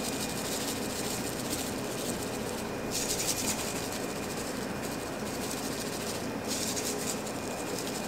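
Salt-and-pepper rub shaken from a full shaker container onto a rack of raw pork ribs: two spells of fine grainy rattling, about three seconds in and again from about six and a half seconds, over a steady hiss.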